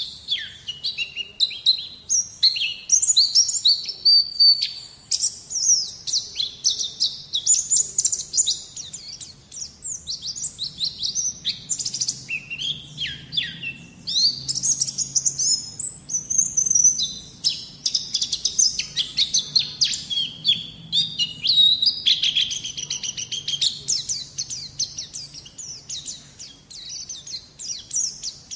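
White-eye (pleci) singing a long, rapid run of high chirps and trills with only brief pauses, played as masteran song to coax a young bird into singing.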